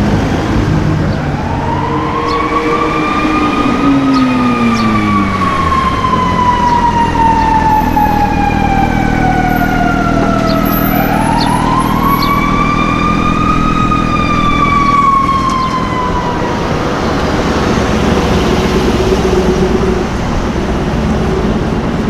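An emergency vehicle's siren wailing through two slow cycles over city traffic noise. Each cycle climbs in pitch, then falls in a long, slow glide, and the siren fades out near the end.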